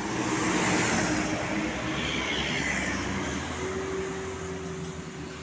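Road traffic: a vehicle passing close by, its engine and tyre noise swelling to a peak about a second in and then fading.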